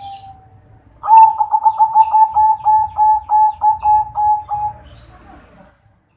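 Zebra dove (perkutut) calling a rapid staccato series of about a dozen coo notes, starting about a second in and lasting nearly four seconds, with faint higher chirps of small birds above it.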